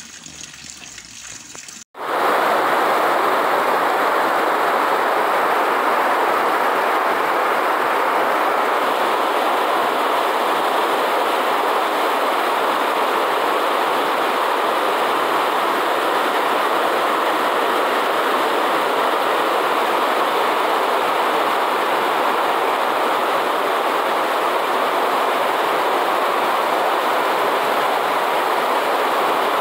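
Heavy rain pouring down, a steady loud hiss. For about the first two seconds it is a quieter shower; then, after a sudden cut, the full downpour starts and stays even throughout.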